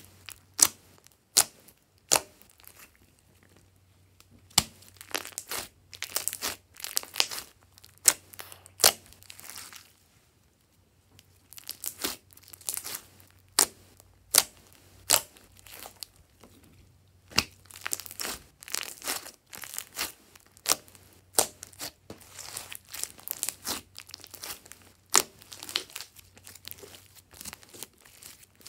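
Hands squeezing, pressing and stretching a large mass of glossy slime, giving irregular sticky clicks, pops and crackles, with a short lull about ten seconds in.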